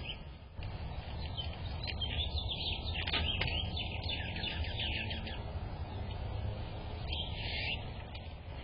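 Small birds chirping: a quick run of high chirps about two seconds in that lasts some three seconds, and a shorter cluster near the end, over a steady low rumble.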